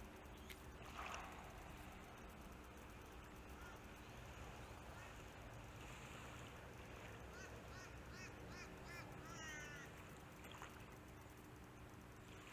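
Faint bird calls over a quiet background hiss: a series of about six short, evenly spaced arching notes, then a quick rapid trill, partway through.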